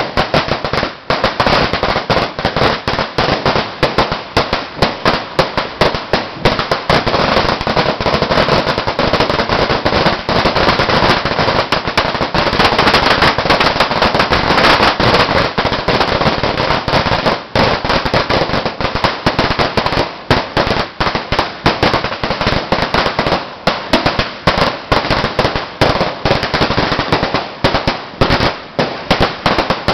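A 'Sawa' firecracker string of about 10,000 rounds going off in one long, rapid crackle of bangs, most dense about halfway through.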